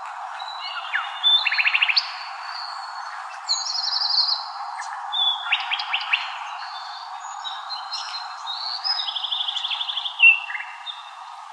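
Birds singing: several rapid trills and short gliding chirps at different pitches, over a steady hiss.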